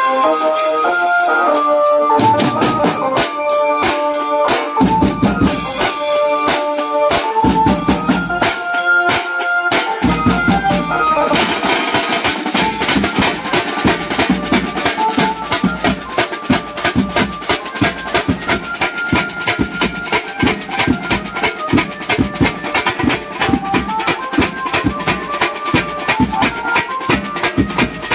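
Banjo-party band playing: an electronic keyboard carries a melody through a horn loudspeaker, with drums joining about two seconds in. From about eleven seconds in the drums play fast and dense under the melody.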